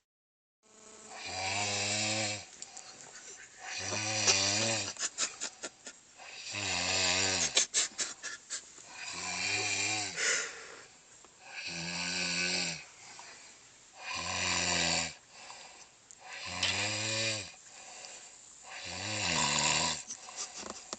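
Steady, rhythmic snoring: about eight low, buzzing snores, each roughly two and a half seconds after the last. Around five and eight seconds in, a snore carries a quick run of clicks.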